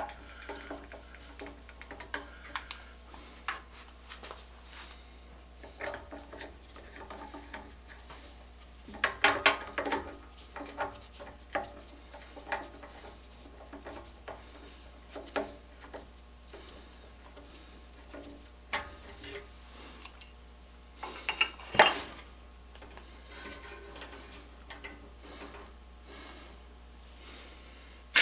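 Small metal hand tools and parts clinking, tapping and scraping on a workbench, scattered irregular knocks with a busy patch about nine seconds in and one loudest sharp knock a little past twenty seconds.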